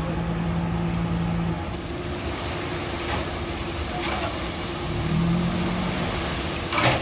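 Diesel engine of road-building machinery running steadily, its low hum swelling early on and again about five seconds in, with one short, sharp sound near the end.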